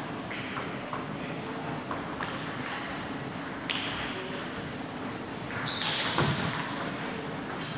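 Table tennis ball clicking off table and bats: a few single taps, then a quick exchange of hits about six seconds in, with the steady background of a large hall.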